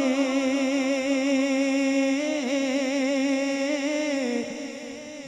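Male naat reciter holding one long sung note with vibrato, which fades away after about four seconds.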